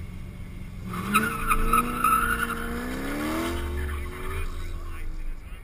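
A Seven-style open-wheeled roadster launches off the start line with a tire squeal. Its engine climbs in pitch through the revs for about three seconds, then drops away near the end. Under it, the waiting car idles with a low rumble.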